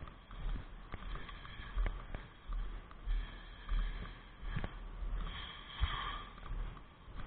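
Footsteps at a walking pace, a little over one step a second, each a soft thud, with a few sharper clicks of gear in between.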